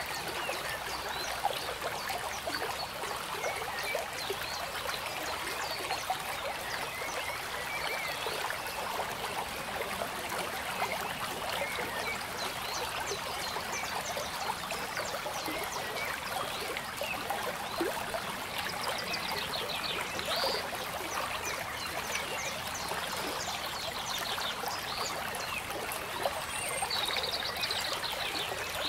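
Water trickling and babbling steadily like a small stream. A brief high chirping trill comes twice, once past the middle and once near the end.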